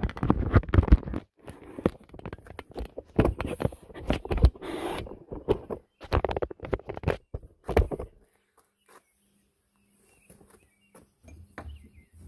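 Handling noise of a camera being mounted on a tripod: irregular knocks, clicks and rustles close to the microphone. After about eight seconds it goes almost quiet.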